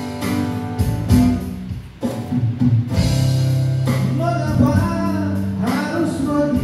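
Live acoustic band: acoustic guitars playing, with a man's singing voice coming in about four seconds in.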